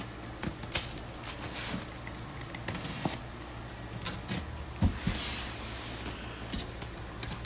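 A box cutter slitting packing tape on a styrofoam fish-shipping box, while the styrofoam scrapes and squeaks as the box is handled. Scattered clicks run throughout, with a sharp knock about five seconds in.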